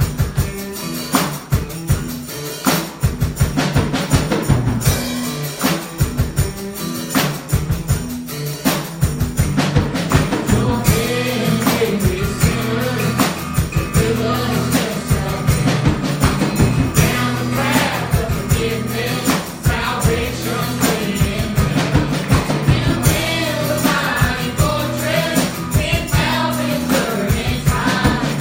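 Gospel worship music from a band with a drum kit playing a steady beat, instrumental at first, with voices singing from about ten seconds in.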